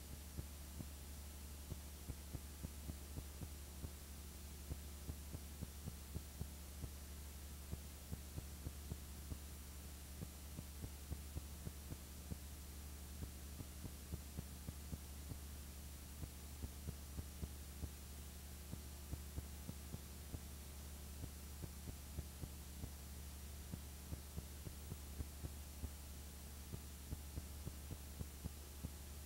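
Faint steady low electrical hum with irregular clicks, a few each second: the background noise of a silent home-movie transfer, with no sound from the filmed scenes themselves.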